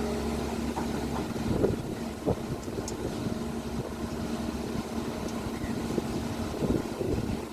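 Excavator's diesel engine running steadily, with a few short knocks.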